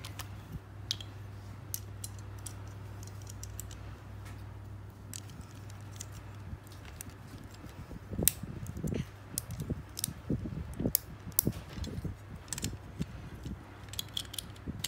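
Plastic and metal Beyblade top parts (layer, metal disc and driver) clicking and clattering as they are handled and snapped together, scattered sharp clicks that come thicker in the second half, over a steady low hum.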